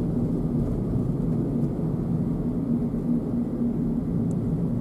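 Steady engine and road noise heard inside the cabin of a moving car, with a low, even hum.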